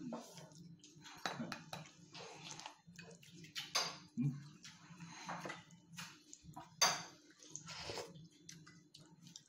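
Spoons clinking and scraping against ceramic bowls during a meal, in scattered short clinks, the loudest about seven seconds in, over a low steady hum.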